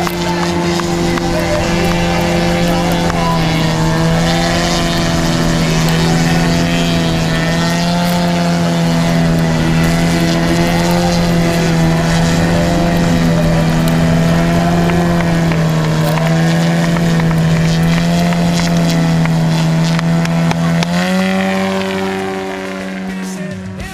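Model airplane's piston engine turning its propeller at a steady drone that wavers slightly in pitch, then rises in pitch about 21 seconds in.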